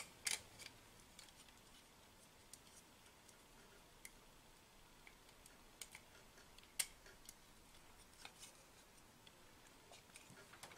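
Near silence with a few faint, scattered clicks from a multimeter test lead and test point board being handled as the probe is moved from one test point to another.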